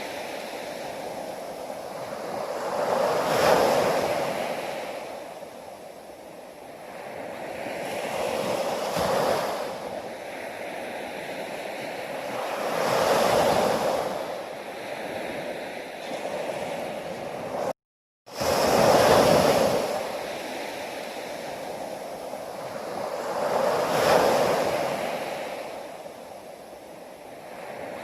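Ocean waves breaking and washing ashore, swelling and ebbing every four to six seconds. The sound cuts out to silence for a split second about two-thirds of the way through.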